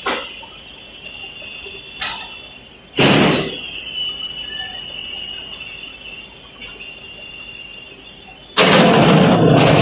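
Automatic track roller welding machine at work: a steady high-pitched squeal with a few sharp clicks. There is a loud burst of hissing noise about three seconds in that fades away, and a louder, sustained rush of noise starting near the end.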